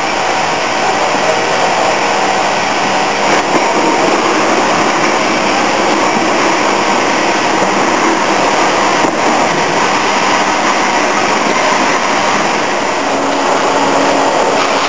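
Loud, steady industrial machinery noise: a continuous rushing hiss with faint hums under it, even in pace throughout.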